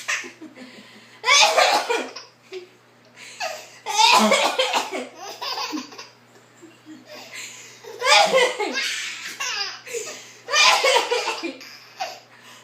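A person's loud vocal fits in about five main bursts of roughly a second each, with short quieter pauses between.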